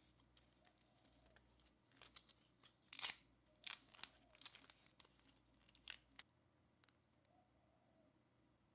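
Faint plastic clicks and clacks from a 3D-printed PLA fidget puzzle as it is folded in the hands, its hinged blocks flipping over and knocking together. A few scattered clicks come from about two to six seconds in, the loudest about three seconds in, then near silence.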